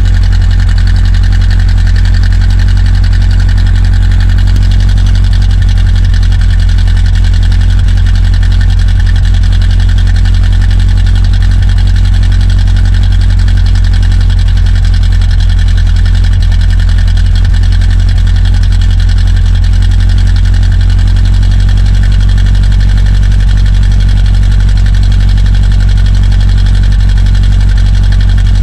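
A 1955 Studebaker Bearcat V8 idling steadily, heard at its exhaust tailpipe. It is a loud, deep, even exhaust note with no revving.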